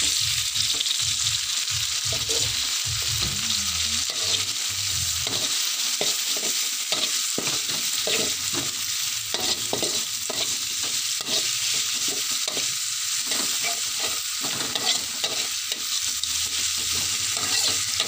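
Chillies, shallots and spices sizzling in hot oil in a metal wok, while a metal spatula scrapes and knocks against the wok in quick, repeated stirring strokes.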